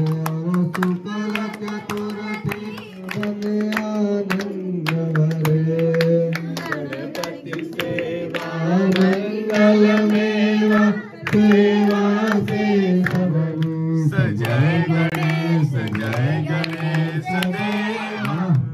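A devotional aarti is sung by a man into a microphone, with others singing along and hands clapping in a steady rhythm.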